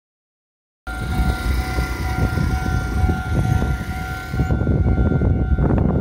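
Japanese railway level crossing warning bell ringing with a steady two-tone note, starting about a second in, over a heavy low rumble: the crossing signalling that a train is approaching as the barriers come down.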